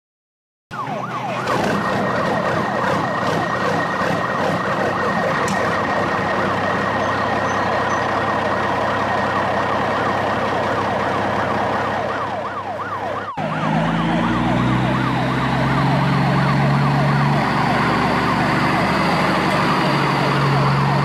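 Electronic siren in a fast yelp, its pitch sweeping up and down a few times a second. About 13 seconds in it cuts off suddenly and a similar siren carries on over a low steady hum.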